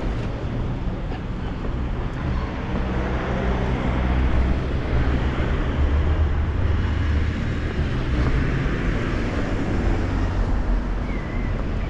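Road traffic on a town street: a car passing with engine and tyre rumble, growing to its loudest about five or six seconds in and then easing off.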